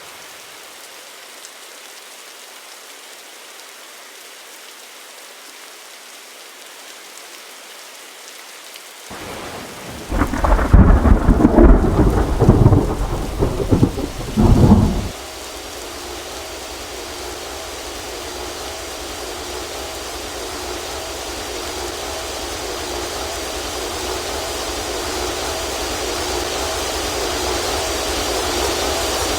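A loud, rough rumble lasting about five seconds starts around ten seconds in. It is followed by a steady engine noise with a faint hum that grows slowly louder toward the end, typical of an aircraft approaching.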